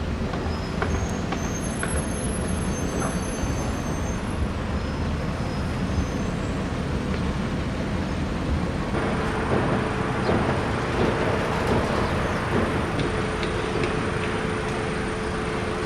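Road traffic noise, steady throughout; about nine seconds in a steady engine hum joins and the noise grows fuller, as a large vehicle comes close.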